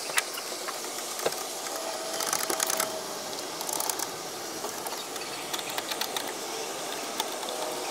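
Hand screwdriver driving screws into a plastic grille bracket: runs of fast, light clicks, busiest about two seconds in and again around four seconds in.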